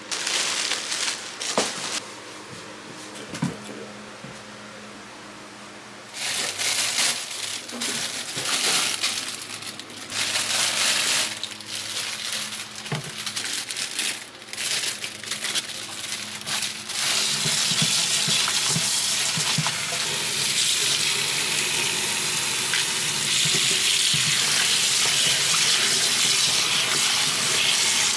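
Kitchen food-preparation sounds: a few light clicks and knocks, then a hiss that starts and stops several times before settling into a steady hiss about two-thirds of the way through.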